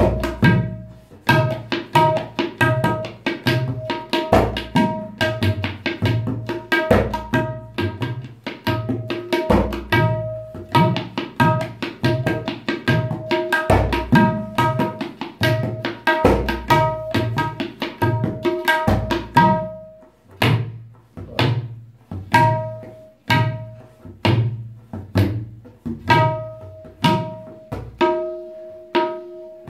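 Tabla, the dayan and bayan drum pair, played in a fast steady rhythm: ringing tuned strokes on the treble drum mixed with deep resonant bass-drum strokes, as a kaida (a theme-and-variations composition on 'dha te te' bols). After about twenty seconds the strokes become sparser and more spaced out.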